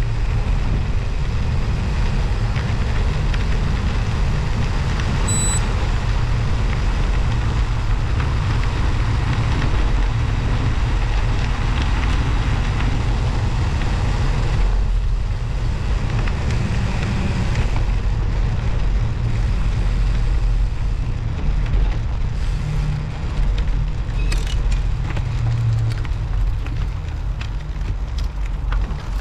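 Steady rushing noise of riding a bicycle on studded winter tyres, with wind buffeting the camera's microphone. It is heaviest in the low end.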